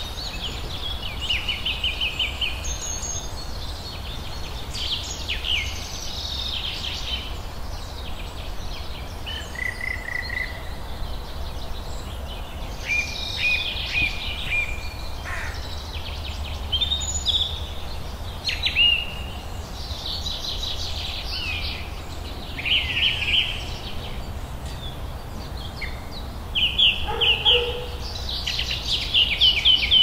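Spring woodland songbird chorus: several birds singing overlapping short phrases and rapid trills, over a low steady rumble.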